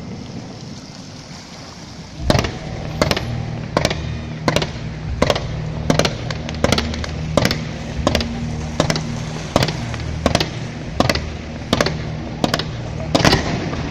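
Fireworks going off: after a brief lull, an even run of sharp bangs starting about two seconds in, roughly one every 0.7 seconds.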